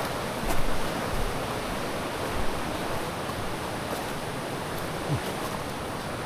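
Steady rushing outdoor background noise, with a few soft low thumps, the loudest about half a second in.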